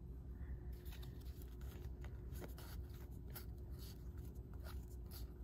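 Trading cards being flipped through by hand: faint, scattered clicks and slides of stiff card stock against each other, over a low steady hum.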